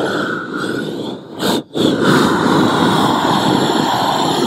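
Propane roofing torch burning steadily as it heats the underside of a torch-down roofing membrane being pressed into place. The noise briefly cuts out about a second and a half in, then resumes.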